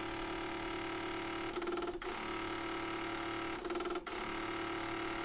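Sony TC-K561S cassette deck making a terrible rattling noise on power-up, a steady pitched mechanical rattle that wavers briefly twice. It comes from its faulty tape transport mechanism.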